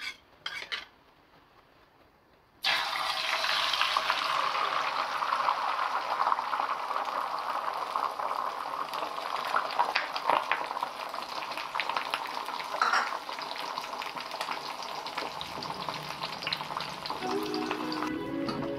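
Food frying in hot oil: a sizzle that starts suddenly about two and a half seconds in and goes on crackling steadily, after a couple of short clicks.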